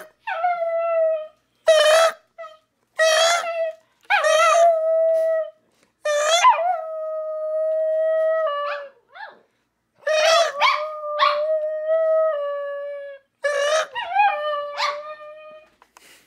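A small dog howling: several long, steady howls, each held for a second or two and sometimes sliding in pitch at the end. Shorter, wavering, higher cries break in between them.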